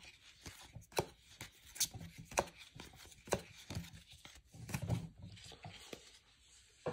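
Bowman baseball cards being flipped one by one through a hand-held stack: sharp, irregular card snaps about once a second, with a louder one near the end.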